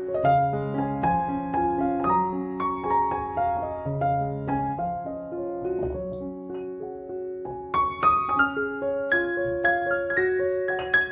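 Background piano music: a slow melody of single ringing notes over lower held chords.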